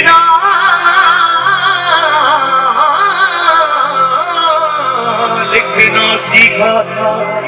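Live band music: a high, held melodic line with heavy vibrato over a steady low drone. There are drum and cymbal hits at the start and again about two-thirds of the way through.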